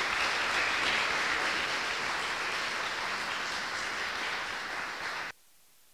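Audience applauding a speaker who has just finished, a steady spread of hand clapping that stops abruptly a little over five seconds in.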